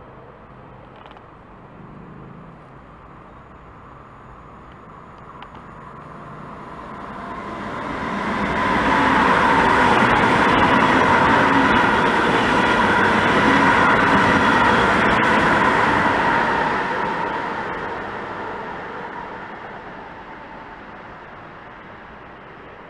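ICE high-speed electric train passing through at speed: a rushing rail noise that swells up about a third of the way in, stays loud for about eight seconds, then fades away.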